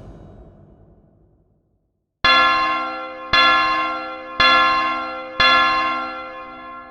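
A bell struck four times, about a second apart, each stroke ringing on with many overtones and slowly dying away.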